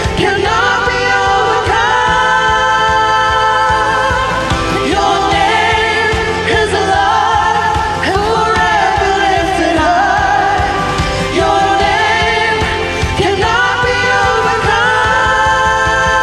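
Contemporary worship song sung by a group of women singers together over a band accompaniment, in phrases a few seconds long that each end on a held note.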